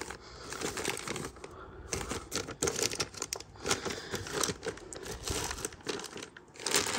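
Plastic zip-top bags holding spools of copper wire crinkling and rustling in irregular crackles as hands sort through them in a plastic storage bin.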